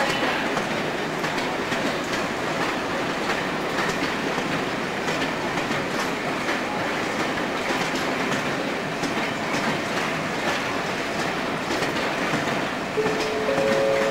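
Train of passenger coaches rolling past a station platform, a steady rumble of running gear with wheels clicking over rail joints. Near the end two steady tones briefly sound together.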